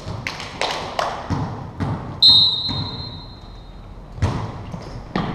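Volleyball play on a hardwood gym floor: a quick series of sharp hits and thumps in the first two seconds, then a referee's whistle blown once, a steady high tone held for nearly two seconds, followed by a few more thumps, all with the echo of a large gym.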